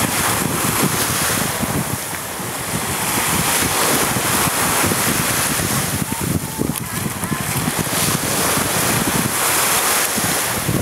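Wind buffeting the microphone, a steady noise with a gusty flutter in the low end, over the wash of the sea.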